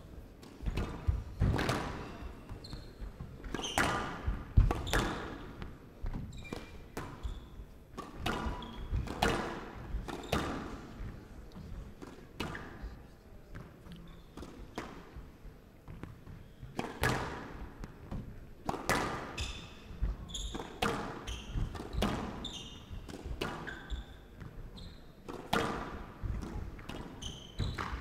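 Squash rally: the ball is struck by the rackets and smacks off the court walls, giving sharp strikes about once a second.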